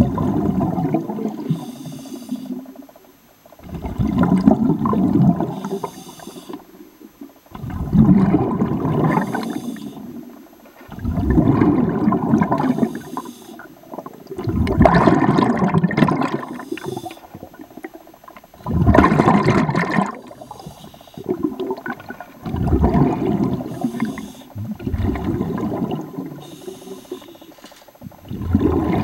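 A diver breathing underwater through a scuba regulator: a bubbling rush of exhaled air about every four seconds, with a short hiss of inhaling between the rushes.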